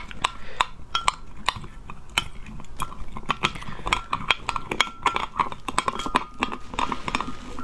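Gold-coloured metal spoon stirring lotus root powder and cold water in a glass mug, clinking against the glass many times in an irregular run as the powder is mixed into a smooth slurry.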